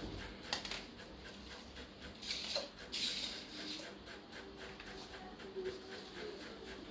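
Toy packaging being handled: a click, then two short bursts of crinkling about two and three seconds in, followed by a faint thin whine.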